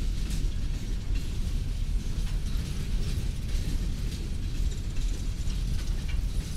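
Loaded BNSF coal train's hopper cars rolling past: a steady low rumble of steel wheels on rail, with irregular clicks and clacks from the wheels and couplers.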